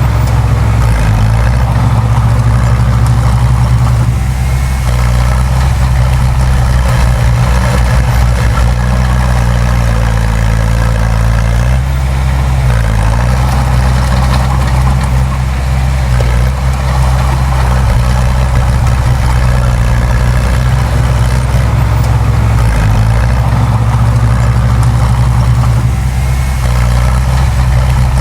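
Heavy diesel engine of earthmoving machinery running steadily at a near-constant speed, with a few brief dips in engine pitch.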